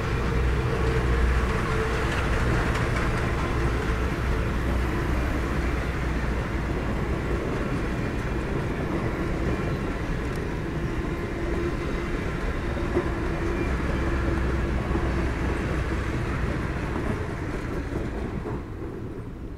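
Passenger train cars rolling past on the rails, a steady rumble of wheels and track that fades away near the end as the last car goes by.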